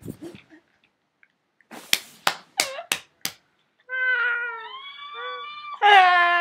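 A few short squeaky gasps, then drawn-out, wavering meow-like cries in a high put-on cat voice from about four seconds in, loudest near the end.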